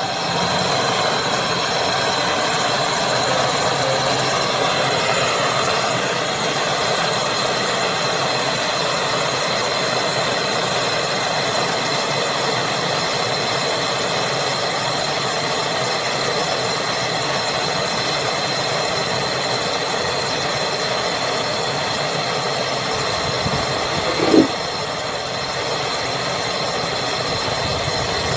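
Gas brazing torch burning steadily at a copper refrigeration pipe, a continuous rushing flame noise with a thin steady high whistle. A short knock comes near the end.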